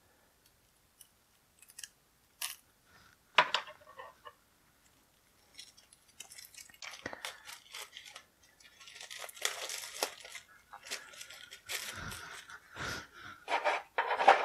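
A few light clicks and taps of cards and packaging being handled, then several seconds of crinkling and tearing as the wrapping is pulled off a deck of game cards.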